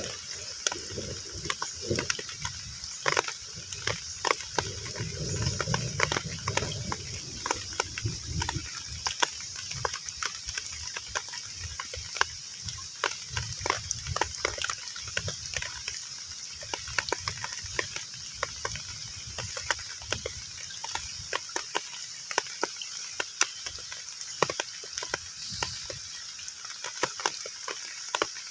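Heavy rain falling on a pond's surface: a dense patter of individual drops over a steady hiss. A low rumble runs underneath, strongest in the first several seconds.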